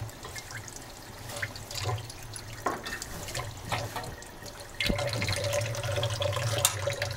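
Tap water running into a sink, louder from about five seconds in. Light clicks and rustles of a metal measuring cup and a paper sugar bag come through it.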